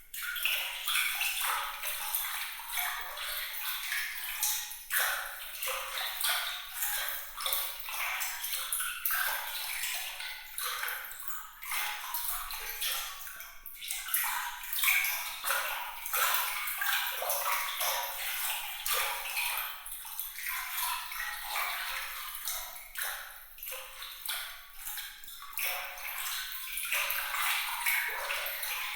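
Water trickling and splashing, made up of many small, bright drips and plinks that come thick and fast with no low rumble.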